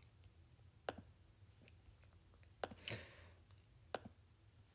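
Near silence: faint room tone with three sharp clicks about a second apart and a brief soft hiss in the middle.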